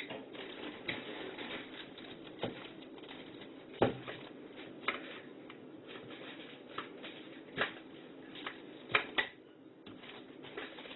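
Scattered clicks and knocks of a slow cooker lid being handled and fitted onto the crock, the loudest about four seconds in.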